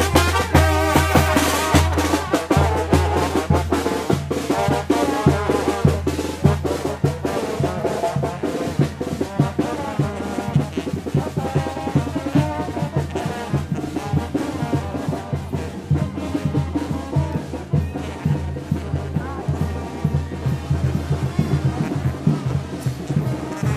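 Procession brass band playing, with bass drum and snare drum keeping a steady beat under the brass; it is loudest in the first two seconds.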